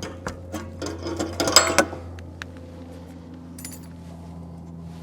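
Quick clicks and metallic clattering of hand tools and fittings being handled for about two seconds, then a few single clicks, over a steady low hum.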